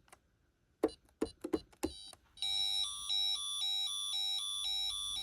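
A few quick keypad button presses, then about two and a half seconds in the Pyronix Paragon Super alarm panel starts a loud electronic warbling alert tone that steps between two pitches, sounding while the system is being set.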